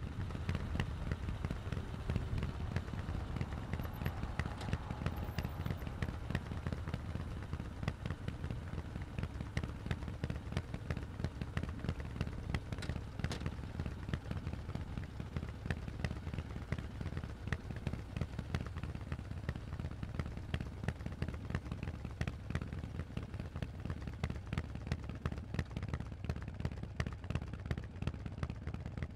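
Harley-Davidson Forty-Eight's air-cooled V-twin running through Vance & Hines aftermarket exhaust pipes: a steady, deep stream of exhaust pulses.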